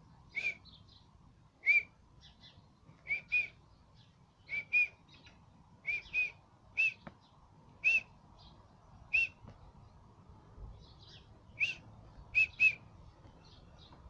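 Small birds chirping: about fifteen short, loud chirps at irregular intervals, some in quick pairs, with fainter, higher calls in between.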